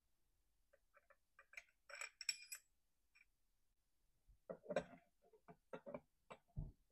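Faint metallic clicks and clinks of a new chainsaw clutch being handled and fitted by hand onto the saw's crankshaft, with a brief metal ring about two seconds in and a quicker run of clicks in the second half.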